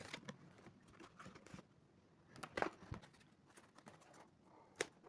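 Faint handling noise of the unboxed gimbal and its packaging: soft rustles and a few light, scattered clicks, the clearest about halfway through and just before the end.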